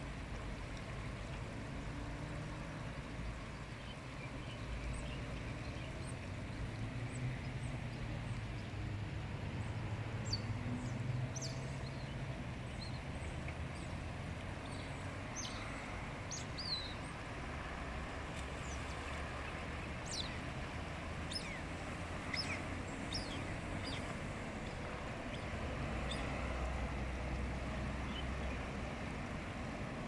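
Steady low rumble of road traffic, with scattered short, high chirps over it from about five seconds in.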